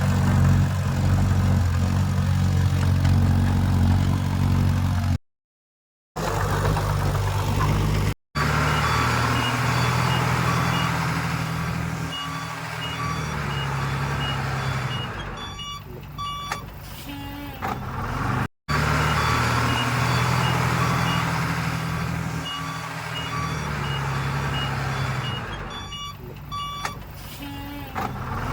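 Heavy earthmoving machinery's diesel engine running, with a reversing alarm beeping steadily over it from about a third of the way in. The sound cuts out sharply for a moment twice early on.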